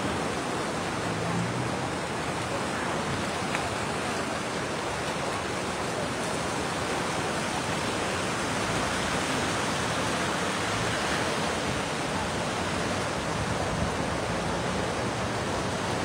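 The swollen Kok River in flood, fast-flowing water giving a steady, even rushing noise.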